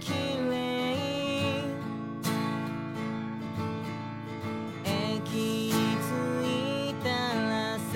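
Instrumental music: strummed acoustic guitar under a melody line that slides between notes, the instrumental stretch before the ending song's vocals.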